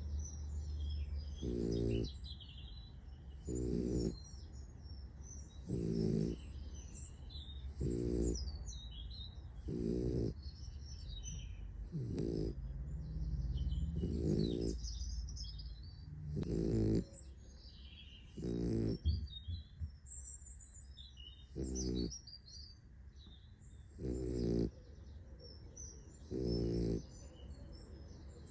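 A sleeping puppy snoring, one snore about every two seconds in a steady rhythm, with one longer, drawn-out snore about twelve seconds in.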